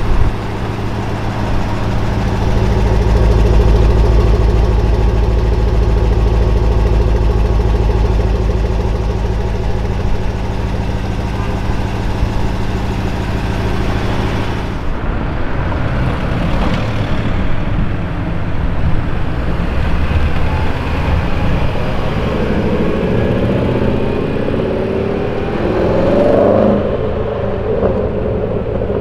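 Range Rover Sport SVR's supercharged V8 idling steadily, heard close to its quad exhaust tips. About halfway through the sound changes to the SUV moving off in street traffic, its engine note rising and falling.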